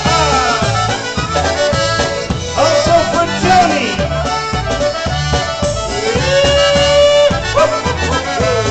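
Live Polish-style polka band playing an instrumental break, with a trumpet among the instruments and a steady bass beat underneath.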